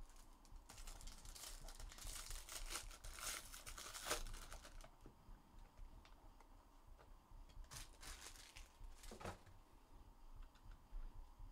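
Foil wrapper of a Bowman Chrome trading card pack being torn open and crinkled for about four seconds, then two brief handling sounds a few seconds later.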